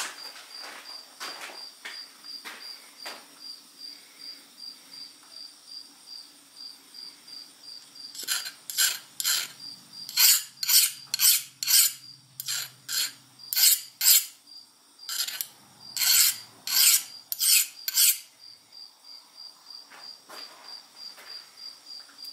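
A file scraped again and again across the edge of a freshly heat-treated steel knife blade, a hardness test: about twenty quick strokes in bunches of three to five, loudest through the middle, with fainter strokes near the start and end. A cricket chirps steadily throughout.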